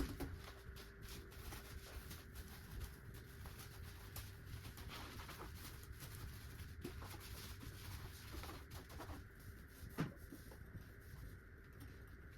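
Faint scattered clicks and taps over a steady low hum, with one sharper knock about ten seconds in.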